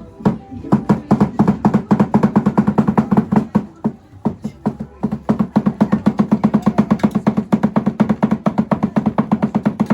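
A drum played in a fast, even rhythm of about seven beats a second, with a short pause about four seconds in before the beating resumes.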